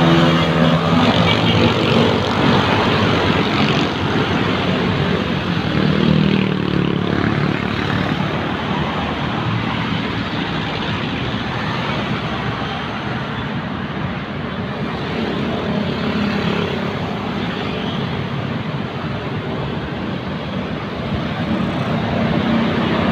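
Steady road traffic, cars and motorcycles driving past, with engine hum swelling near the start and again about six seconds in.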